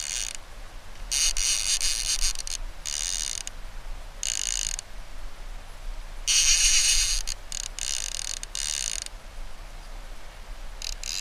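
Fishing reel ratcheting in about seven separate bursts, each half a second to a second and a half long, while a hooked Chinook salmon is being fought on a bent rod.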